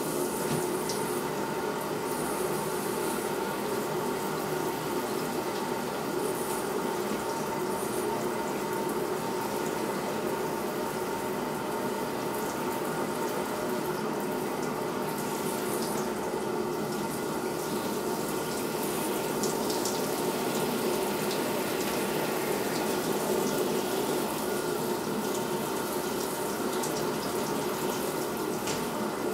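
Shower spray running steadily, the water falling onto a soaked fake-fur coat.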